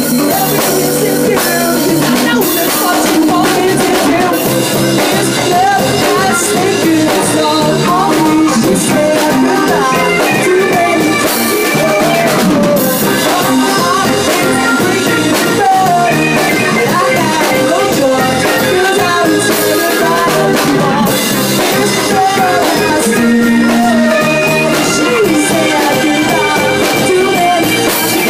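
A live band playing loudly through a PA: a man singing into a microphone over an electric guitar and a drum kit.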